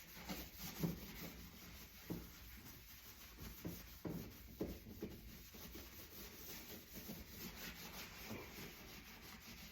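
Faint scrubbing of a dishwasher's interior with baking soda: irregular rubbing strokes about every half second to a second.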